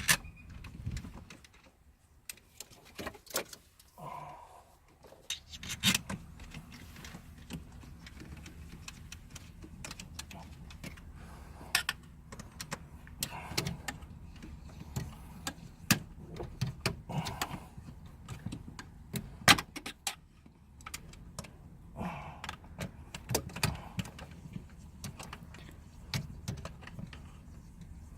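Irregular metallic clicks, clinks and knocks of hand tools and hardware as the shifter's fasteners are fitted and snugged down, over a steady low hum.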